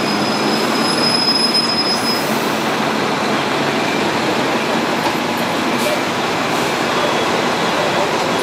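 Hong Kong double-decker tram running on its rails, heard from the top deck as a steady rumble and rattle of wheels on track. A thin, high squeal sounds for the first two seconds or so.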